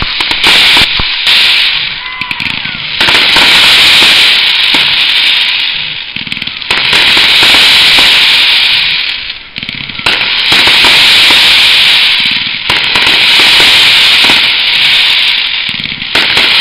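Fireworks display: dense, very loud crackling of gold crackle-star bursts, coming in surges every few seconds with brief lulls between them.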